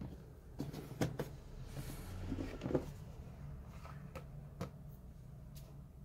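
Plastic snap-latch food container being opened: several sharp plastic clicks and knocks as the latches are unclipped and the lid is lifted off, over a faint low steady hum.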